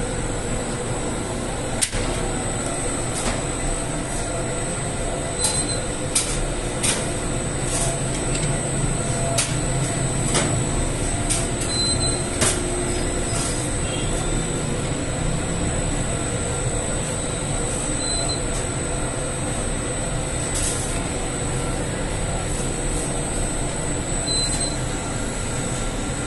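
Bakery dough sheeting machine running, its canvas conveyor belt carrying flatbread dough under the rollers: a steady mechanical hum with a high whine and scattered sharp clicks, most of them in the first half.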